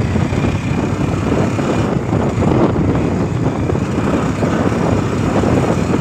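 Motorcycle riding along an unpaved dirt road: engine running with steady, rough road noise.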